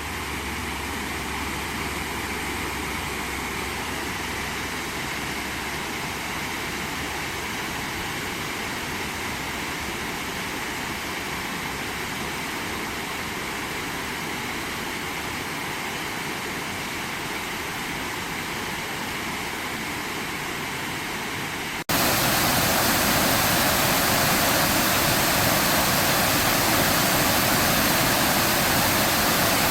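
Waterfall rushing steadily. About 22 seconds in it cuts abruptly to a louder, hissier rush of falling water.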